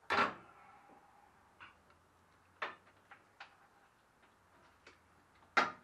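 Engine parts and tools knocking on a workbench during a small-engine teardown: a loud knock with a short ring at the start, a few lighter clicks and knocks in the middle, and another loud knock near the end.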